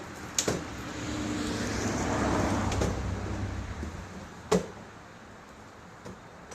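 A toolbox being worked into place on its mount. A sharp click comes about half a second in, then a few seconds of rubbing, rumbling noise that rises and falls, then another sharp click.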